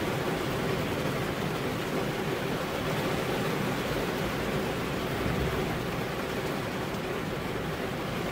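Heavy rain falling steadily, a dense even hiss of drops with no single drop or thunder clap standing out.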